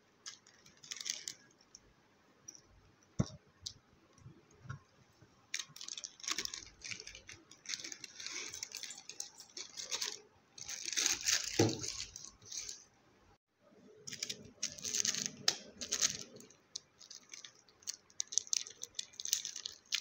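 Plastic instant-noodle wrapper crinkling and tearing in the hands, in intermittent bursts, then a small masala sachet being torn open near the end. A single sharp click sounds about three seconds in.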